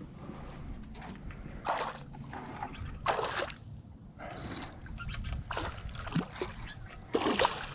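A hooked northern snakehead thrashing at the water's surface beside a kayak: about four separate splashes, roughly two seconds apart.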